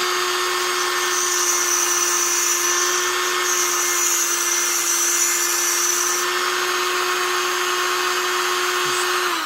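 Techsouth Power Point handheld tungsten grinder running with a steady whine while a tungsten electrode is ground slowly on its diamond wheel, with a high grinding hiss through the first several seconds. At the very end the motor is switched off and spins down.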